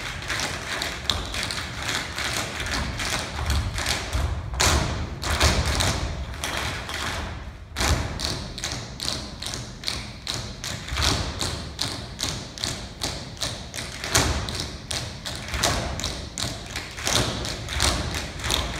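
A large ensemble tap dancing in unison: fast, rhythmic taps and stamps from many feet on the stage floor, with a brief break about eight seconds in.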